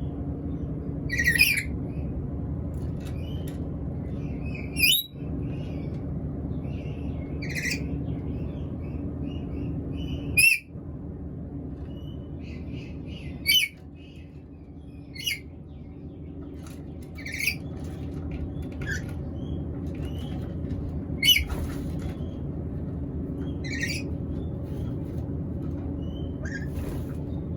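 Black-capped lory giving short, sharp squawks and chirps at irregular intervals, typical of the bird when it is hungry. A steady low hum runs underneath.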